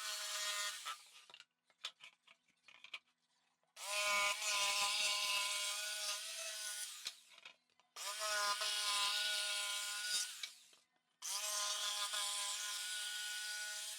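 Electric jigsaw cutting OSB board in four separate runs: a steady motor whine over rasping cutting noise. The first run stops about a second in and the others start at about 4, 8 and 11 seconds. Light clicks and knocks come between the cuts.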